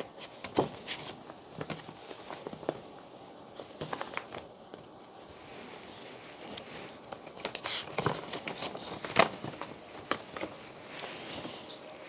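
Handling noise: irregular rustling and crinkling with scattered sharp clicks and taps. The sharpest click comes about nine seconds in.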